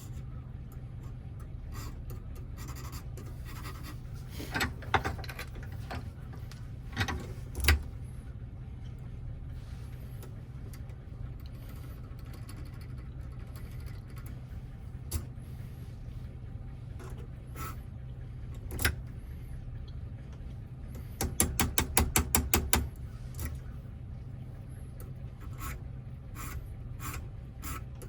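Small clicks and scrapes from handling a Toyota door lock cylinder and its wafers, with a quick run of rapid clicks about three-quarters of the way in, over a steady low hum.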